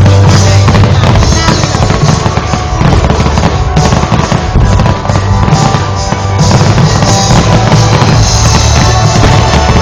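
Fireworks display: firework bursts and crackling mixed with loud music that has a strong bass and drums.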